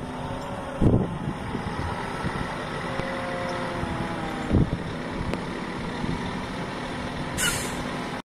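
Engine of a self-propelled digestate spreader running steadily as the machine moves slowly, its pitch drifting a little. Two loud rumbling gusts come at about one second and four and a half seconds in, and a brief hiss comes near the end.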